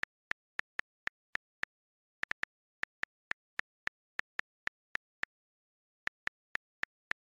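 Smartphone keyboard clicks as a thumb types a message: short, crisp taps about three or four a second, with two brief pauses, one near two seconds in and one between five and six seconds in.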